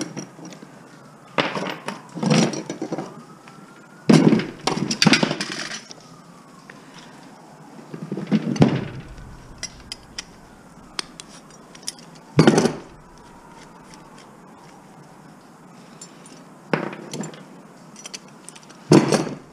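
Metal hardware and scrap pieces clanking and clattering as they are handled and dropped, in about seven separate bursts with short pauses between.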